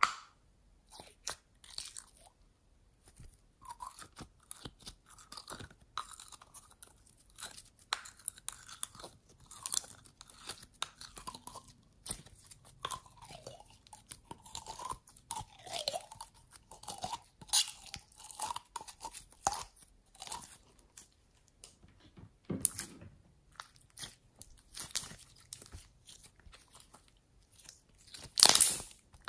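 Clear glitter slime mixed with blue slime being squeezed and kneaded by hand, making irregular clicks and squelches, with a louder squelch near the end.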